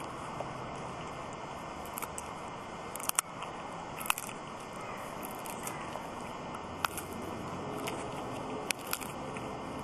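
A dog gnawing and crunching a wooden stick, the wood cracking and snapping sharply between its teeth about half a dozen times, loudest around three and four seconds in, over a steady hiss.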